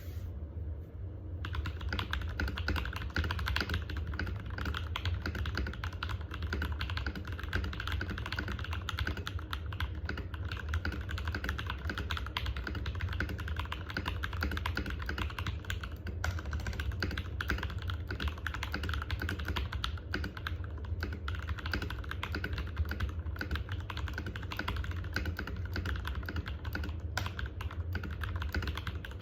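Fast, continuous typing on an Epomaker EP84 hot-swap 75% mechanical keyboard with Jwick Black and KTT Rose linear switches: a dense stream of keystroke clacks starting about a second and a half in, over a steady low hum.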